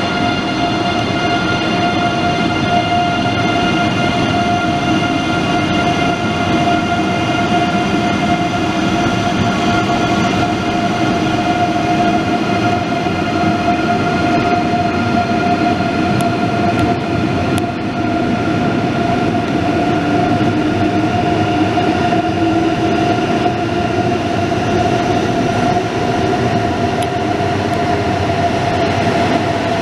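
ICE 3 high-speed electric train moving slowly along the platform, a steady whine over its rolling noise.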